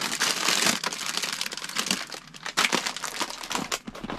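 Plastic salad bag crinkling and rustling as it is handled, with a few sharper crackles and light knocks.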